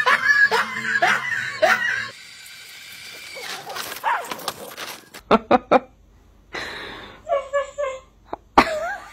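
A loud voice-like sound at first, then a quick run of about five short dog barks about five seconds in, followed by more patchy vocalizing.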